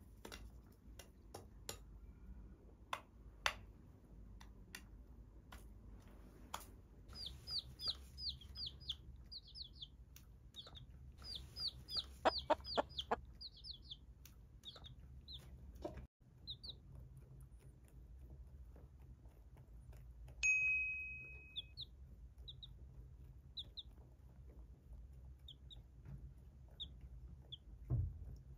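Young chicks peeping in quick runs of short, high, falling cheeps, after a spell of sharp taps from chickens pecking grain off a plate. A single short ringing ding comes about twenty seconds in, and a soft thump near the end.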